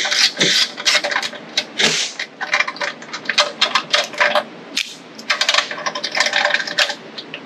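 Hand ratchet wrench clicking in quick irregular runs, with metal clinks, as the bolts holding the recoil starter housing on a Tillotson 212 engine are backed out by hand.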